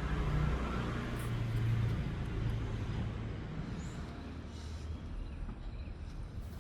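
An engine running with a low, steady rumble, loudest in the first couple of seconds and then slowly fading.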